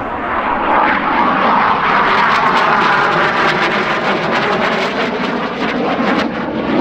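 Alenia Aermacchi M-346's twin turbofan jet engines, loud and rushing as the jet flies past, with a swirling, sweeping phasing through the middle of the pass.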